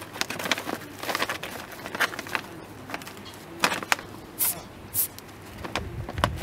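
A stiff paper shopping bag crinkling and rustling under cats' paws as they climb and scuffle on it, in irregular bursts with a few louder crackles about midway.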